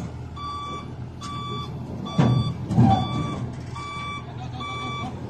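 Vehicle back-up alarm beeping at an even pace, about one beep every three-quarters of a second, over a running engine. A louder low rumble swells briefly about two seconds in.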